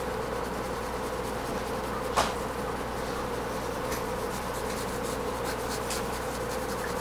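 Steady background hum with a held tone in it. Over it, faint scratches of a graphite pencil shading on drawing paper, and a single tick about two seconds in.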